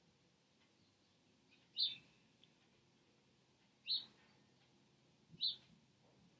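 A bird chirping: a short, high single chirp about every two seconds, three times.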